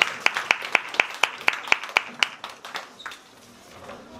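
Audience clapping in unison, about four claps a second over scattered applause, dying away about two and a half seconds in.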